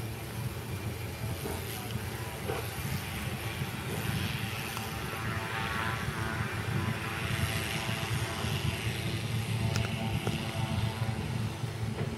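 Single-engine propeller plane's engine running steadily as it taxis on a grass airstrip, a constant low drone.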